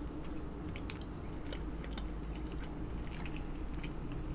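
Close-miked chewing of hard-boiled egg, with many small, irregular wet mouth clicks.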